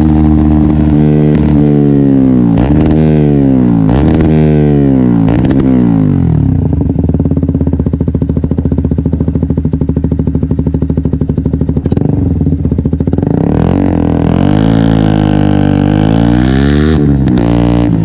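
KTM 125 Duke's single-cylinder four-stroke engine revving up and dropping back several times through gear changes, then slowing to steady low revs with a fast, even putter. About four seconds later it pulls up through the revs again, with a gear change near the end.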